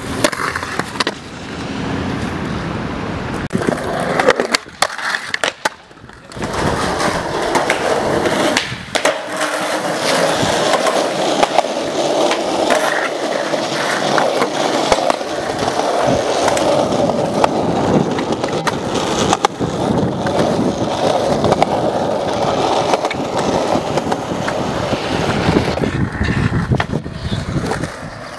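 Skateboard wheels rolling over concrete and asphalt in a steady gritty rumble, broken now and then by sharp clacks of the board striking the ground.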